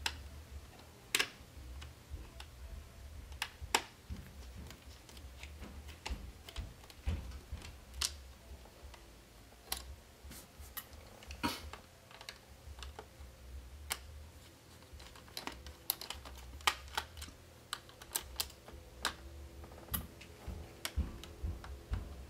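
Scattered small clicks and taps of a Phillips jeweler's screwdriver working the screws out of a laptop's plastic screen bezel, irregular and a few per second at most, over a low steady hum.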